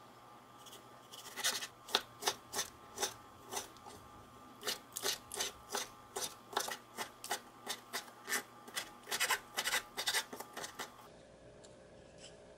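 Knife chopping through tomato onto a wooden chopping board while dicing: a steady run of sharp knocks, about three a second, that stops about eleven seconds in.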